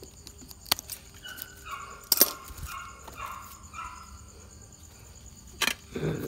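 A few sharp snips of pruning shears cutting leaves, while a dog gives a run of short, high yips and whines between about one and four seconds in.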